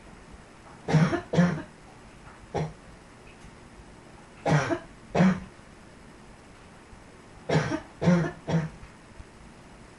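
A person's barking chest cough in short fits: two coughs, then a single one, then two more, then three in quick succession.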